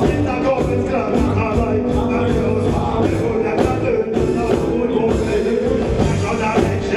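Live reggae band playing, drums, electric guitar and keyboards over a steady beat, with a voice singing.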